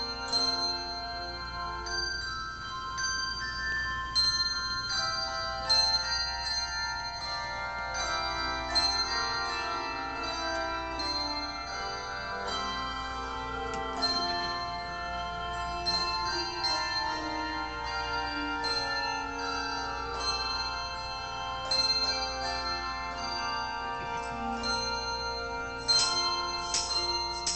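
Handbell choir playing a piece: many tuned bells struck one after another, their notes overlapping as they ring on. A few sharper, louder strikes come near the end.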